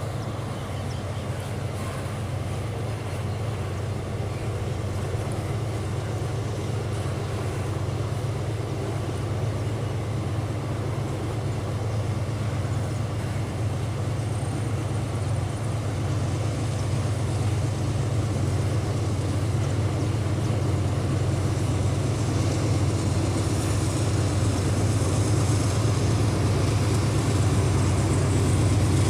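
Freight train on the line, with a steady low diesel-locomotive drone over rolling noise that grows slowly louder as it comes closer.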